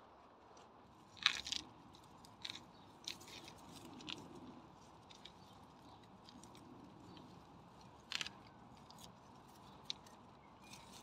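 Weeds being pulled by hand from among loose pebbles: faint, irregular crunches and clicks as the stems tear and the stones shift, the sharpest about a second in and again about eight seconds in.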